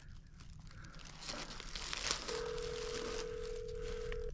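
Cell phone ringback tone heard through the phone's speaker: one steady ring lasting about two seconds, starting about halfway through, as an outgoing call waits to be answered. Before it there is rustling of clothing and handling of the phone.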